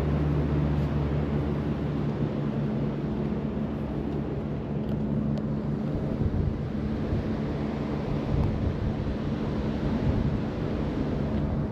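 Tour helicopter droning steadily overhead over a wash of wind noise.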